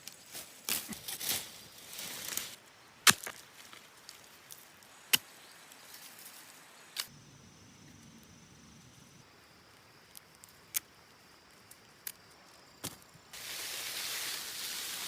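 Scattered sharp knocks and clicks, one at a time with quiet between, the loudest about three seconds in. Near the end a steady rush of running stream water comes in.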